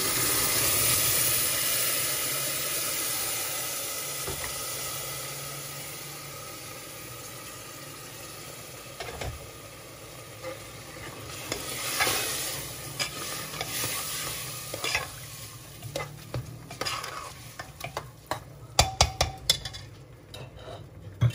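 Rice and lentils poured into hot oil and tomato masala in an aluminium pressure cooker, setting off a loud sizzle that slowly dies down. A steel ladle then stirs and scrapes the mix, knocking and clicking against the pot, most often near the end.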